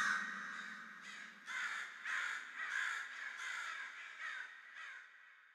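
Crows cawing: a string of harsh caws, about two a second, growing fainter and dying away near the end.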